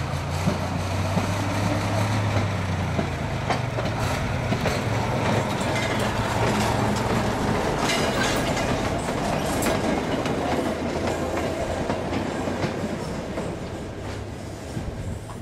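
Rail-converted ex-Russian army lorry running along narrow-gauge track, its engine humming low as it comes up. Then the wheels of its loaded wagons clatter and knock over the rails as they pass, the sound easing off near the end.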